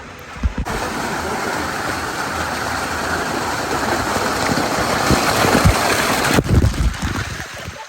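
Jet ski running at speed: a loud, even rush of engine and wind noise starts abruptly about half a second in, swells slightly, then cuts off sharply, leaving a few low thumps of wind on the microphone.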